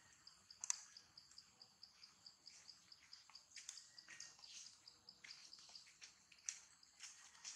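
Faint, high-pitched insect chirping in a fast, even pulsing rhythm, with a few soft, sharp clicks scattered through it.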